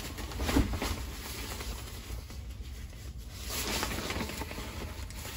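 Plastic packaging rustling and crinkling as an item is handled and pulled out of a shipping box, with irregular handling noises over a steady low hum.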